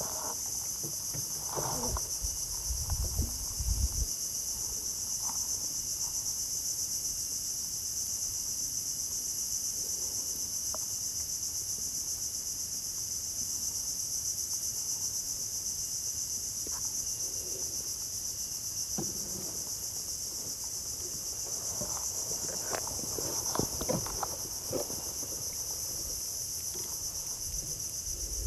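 A steady, high-pitched chorus of insects droning without a break. Scattered short clicks and knocks come over it, with a few low bumps about two to four seconds in.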